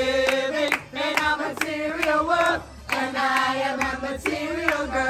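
Singing with handclaps keeping the beat, about two claps a second; the sung line holds notes and breaks off briefly near the middle.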